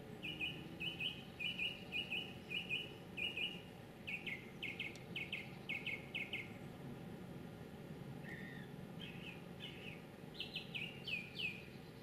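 A songbird singing: runs of short, clear notes repeated quickly in series, first in pairs and then in tight groups of three. After a pause of about a second and a half, a further phrase of sharper, downward-sweeping notes follows.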